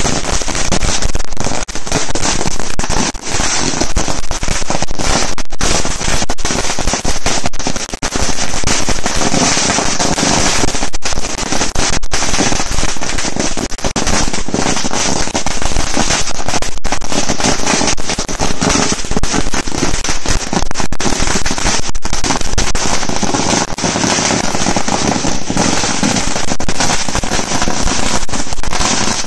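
A 5000-wala firecracker string, a chain of thousands of small crackers, going off in a loud, unbroken rapid rattle of bangs.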